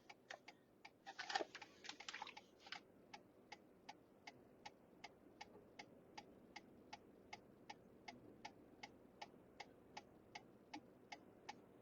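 Faint, steady clicking of a vehicle's indicator flasher, about three ticks a second, from a truck stopped at the roadside. A brief faint rustle comes about a second in.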